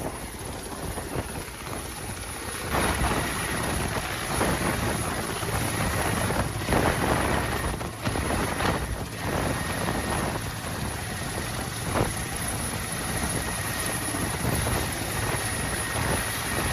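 Helicopter running nearby, a steady rotor and engine noise that gets louder about three seconds in, with a thin high whine over it.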